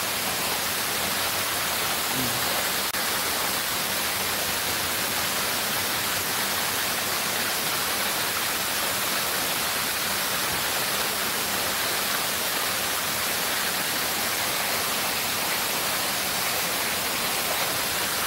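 Steady rush of water cascading down a stepped fountain wall.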